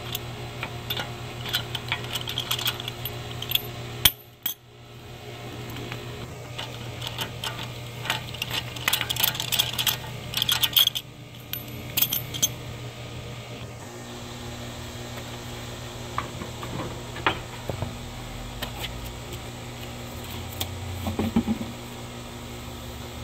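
Steel lug nuts clicking and clinking as they are spun off a wheel stud by hand and handled, a scatter of light metallic clicks, over a steady low hum.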